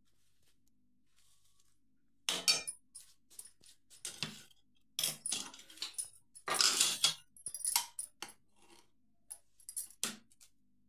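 Steel utensils clinking and scraping in quick, irregular clatters starting about two seconds in: a ladle and spoons knocking against a steel bowl, a steel plate and an aluminium pressure cooker as curry and rice are served.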